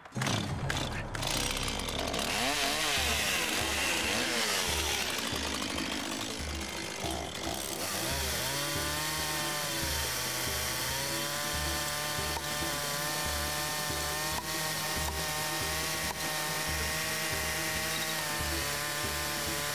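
An ordinary, cheap chainsaw running and revving as its bar is swept along a row of beer bottles to knock the caps off, with music with a steady beat under it.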